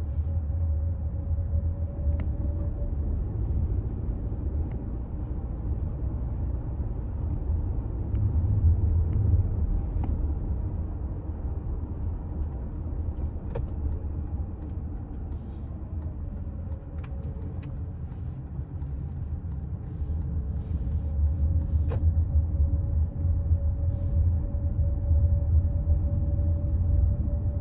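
Toyota Alphard Hybrid on the move: a steady low road-and-drivetrain rumble with a faint tone that drifts up and down with speed. The rumble grows somewhat louder toward the end.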